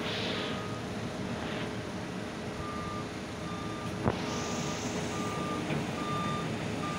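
Reversing alarm of heavy construction machinery beeping, one beep after about half a second and then a regular beep roughly every 0.8 seconds from two and a half seconds in. Under it runs the steady rumble of site machinery, and there is a sharp knock about four seconds in.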